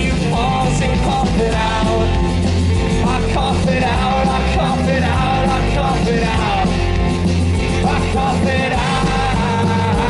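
Live rock band playing loud through a festival PA, with drums and electric and acoustic guitars, and voices singing over it. It is heard from within the crowd.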